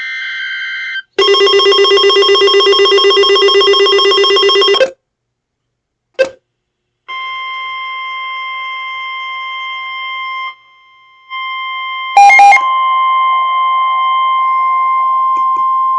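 Weather radio alert tones: a short chirp of data tones, then a loud pulsing electronic alarm for about four seconds. From about seven seconds in comes the steady high NOAA Weather Radio warning tone, with a short break near eleven seconds and a brief loud crackle of data tones just after.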